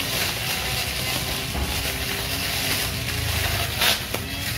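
Iron Hoof cordless battery grass trimmer running, its cutting head whipping through tall grass, with one sharp hit about four seconds in.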